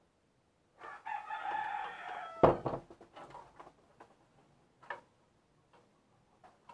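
A rooster crows once, a pitched call of about a second and a half that drops in pitch at the end. As the crow ends there is a loud thump, followed by a few faint knocks.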